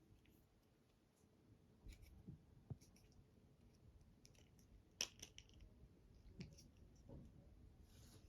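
Faint, scattered clicks and light knocks of small plastic toy pieces being handled and fitted together, about six in all, the sharpest about five seconds in.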